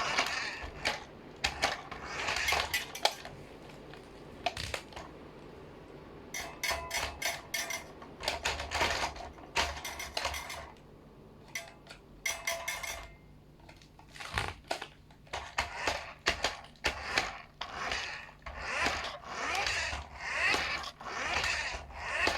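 Hard plastic clicking and clattering as a remote-control toy car and its controller are handled and adjusted, with short rushes of noise in between.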